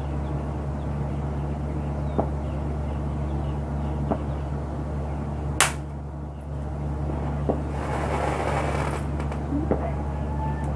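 A small firecracker goes off with one sharp crack about halfway through. A few fainter clicks come before and after it, and a hiss lasts about a second shortly after the crack, over a steady low hum.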